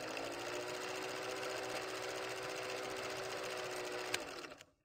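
Film projector running as a sound effect: a steady mechanical rattle with a hum under it, one sharp click about four seconds in, then it cuts off.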